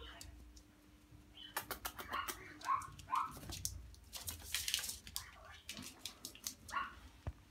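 A Maltese puppy's claws and paws tapping quickly on a hard floor as it runs about, in bursts of rapid clicks, with a few short high squeaks between them.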